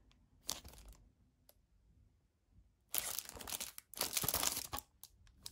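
Clear plastic protective sleeve on a DVD case crinkling as the case is handled and turned over: a brief rustle about half a second in, then two longer spells of crinkling in the second half.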